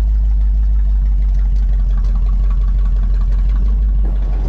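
Buick 455 V8 with a newly broken-in Stage 1 camshaft running at a steady, even speed while the car drives. It is heard from inside the cabin as a low rumble.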